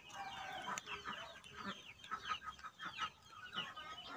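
Chickens clucking and chirping, a dense run of short, falling calls overlapping one another.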